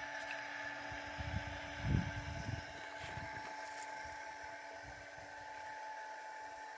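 Mighty Mule 660 gate opener's 12-volt motor and actuator arm running with a steady whine as it swings a metal tube farm gate open. A brief low rumble stands out about two seconds in.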